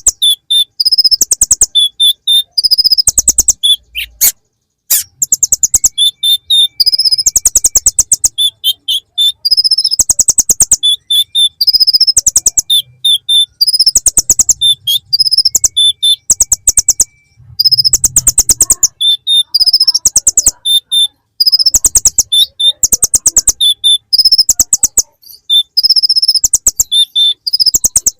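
Kolibri ninja (konin) sunbird singing a song full of imitated bar-winged prinia (ciblek) phrases: long runs of rapid ticking notes mixed with high whistled notes, in phrases broken by brief pauses.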